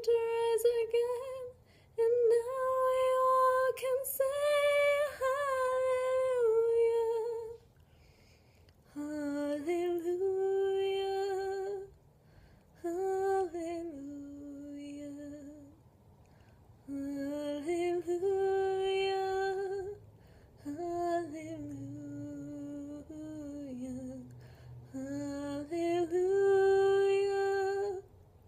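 A woman's solo unaccompanied voice singing a slow melody without clear words, in long held phrases with short breaths between; the line drops lower about nine seconds in.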